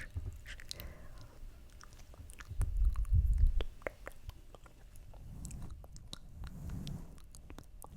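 ASMR mouth sounds close to the microphone: quick wet clicks and smacks of lips and tongue. A low muffled rumble starts about two and a half seconds in and lasts about a second; it is the loudest part.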